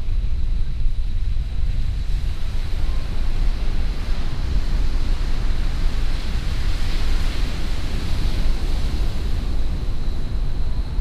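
Wind buffeting the microphone in a steady low rumble, with ocean surf breaking on the beach; the wash of the surf swells about two-thirds of the way through.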